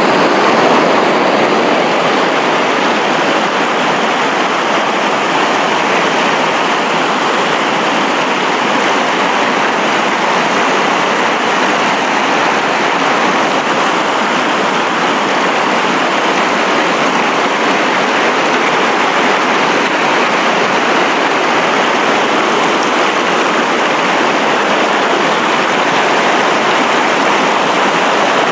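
Fast-flowing mountain stream rushing over rocks, a loud, steady noise of running water, heard from right in the current.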